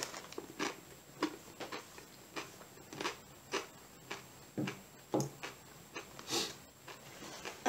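A person chewing crunchy corn tortilla chips with the mouth closed: short crunches, about two a second.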